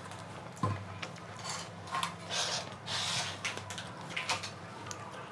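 Eating noises at a table: scattered light clicks and knocks of cutlery and plates, a sharper knock a little over half a second in, and brief crackly noises around two and three seconds in.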